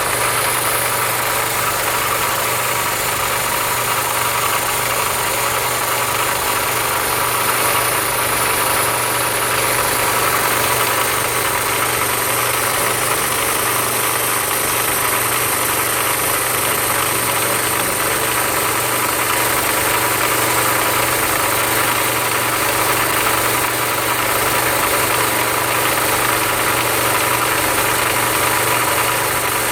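Automatic electric sanding machine running steadily: an even motor hum with a higher whine over a continuous hiss.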